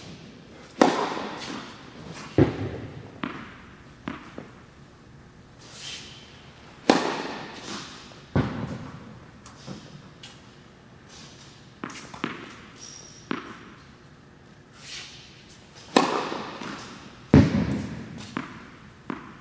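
Tennis serves in an echoing indoor hall: three sharp racket-on-ball strikes, about a second in, near the middle and near the end, each followed about a second and a half later by a duller thud. Fainter taps come in between.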